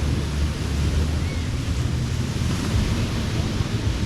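Ocean surf washing onto a beach, a steady hiss of breaking water, with wind rumbling on the microphone.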